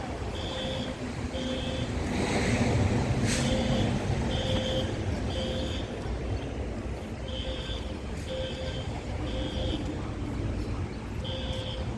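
Building fire alarm sounding its evacuation signal: a high beep in groups of three, about a second apart, then a pause, the group repeating about every four seconds. Under it runs a steady low rumble that swells for a couple of seconds early on, with a single click in the middle of that swell.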